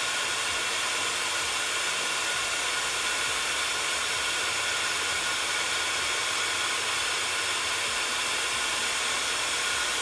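Heat embossing tool running steadily, blowing hot air to melt embossing powder on stamped cardstock: an even rushing of air with a faint whine in it.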